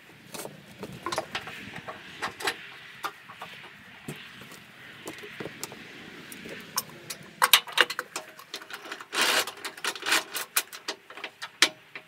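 Irregular metal clicks and clanks from clamps being handled and tightened to hold a log on a sawmill bed, scattered at first and coming thick and fast in the second half.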